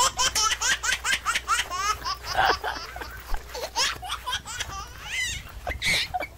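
A young child laughing in a long run of quick, high-pitched peals that die down near the end.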